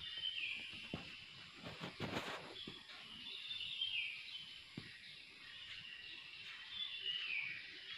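A bird calls three times, about three and a half seconds apart, each a short high call that slides down in pitch, over faint steady background noise. A few knocks and a brief rustle come about two seconds in.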